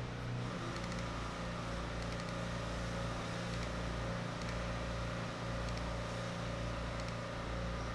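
Steady low mechanical hum of the room's background, with a few faint clicks.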